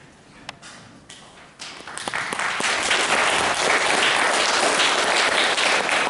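Audience applauding: a few scattered claps, then full applause building about two seconds in and holding steady.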